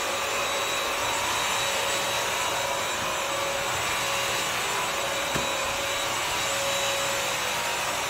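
BISSELL CrossWave Pet Pro wet-dry vacuum running in its area-rug mode as it is pushed over a doormat: a steady motor whine over rushing suction noise.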